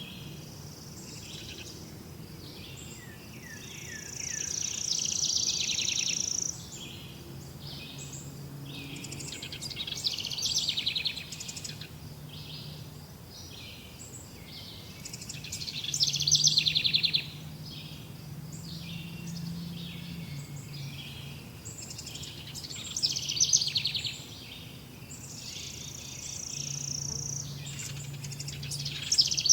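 Several songbirds chirping and singing in overlapping calls and quick trills, louder in bursts every few seconds.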